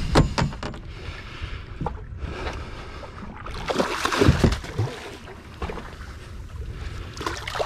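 A hooked barracuda thrashing and splashing at the surface beside the boat, loudest about three and a half to four and a half seconds in, over steady wind and water noise. A knock or two sounds near the start.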